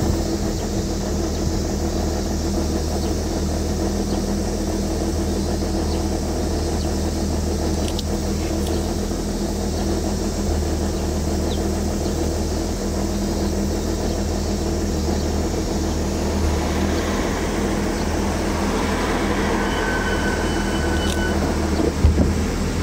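BMW E36 M3's straight-six engine running at a steady speed under way, with tyre and road noise, heard from inside the cabin.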